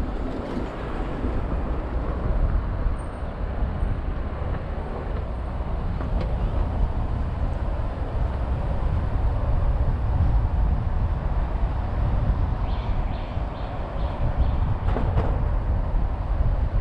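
Car driving on a city street: steady low rumble of tyres and engine. A short run of faint high beeps comes about thirteen seconds in, followed by a light knock.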